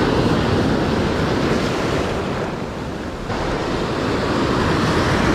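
Ocean surf breaking on a sandy beach and against jetty rocks: a loud wash of crashing waves that eases a little around three seconds in and swells again toward the end.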